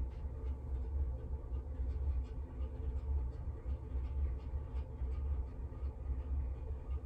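A low, steady background rumble, with faint light ticks scattered over it.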